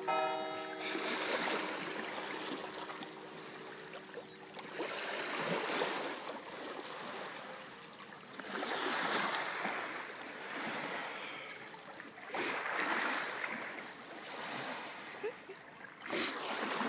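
Small lake waves lapping against the rocky shore, the wash swelling and fading every three to four seconds. A steady hum sounds through the first few seconds and fades out.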